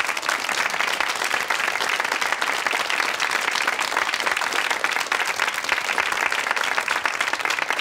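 Studio audience applauding, a dense, steady clapping.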